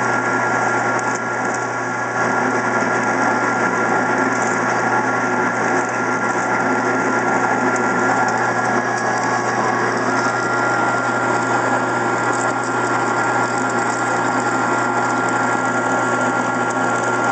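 Benci TY-C0632 gear-head metal lathe running steadily at low speed while taking a heavy cut in mild steel, a continuous gear-driven machine noise with a steady high tone over a low hum.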